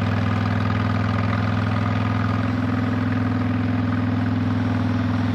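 2007 Honda VTX 1300S motorcycle's V-twin engine idling steadily, its pitch unchanging.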